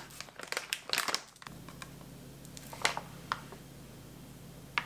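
A plastic pouch of active dry yeast crinkling as it is handled: a quick flurry of crackles in the first second and a half, then a few single crinkles near the middle and just before the end.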